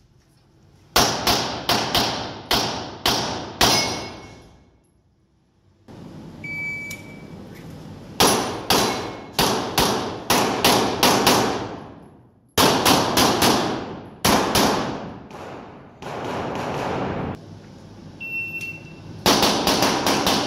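Pistol fired in quick strings of shots with short pauses between strings. Each report echoes off the walls of an indoor range.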